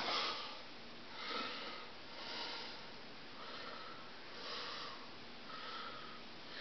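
A person breathing in soft, rhythmic breaths, about one a second. Each breath is a short hissy swell with a faint whistle in it.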